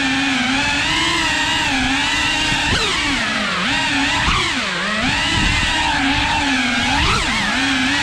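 Cinewhoop FPV drone's motors and ducted propellers whining, the pitch swooping up and down with the throttle.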